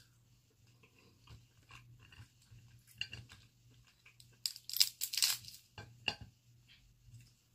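Cooked Dungeness crab shell being cracked and pulled apart by hand: scattered small cracks and clicks, with a loud burst of crunching and tearing about halfway through and another shorter crack a second later. Some chewing is heard between the cracks.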